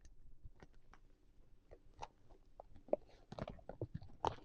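Faint crinkling and crackling of a gold foil snack-bar wrapper being handled around a broken chocolate wafer bar, a few scattered ticks at first and a denser cluster of crackles from about three seconds in.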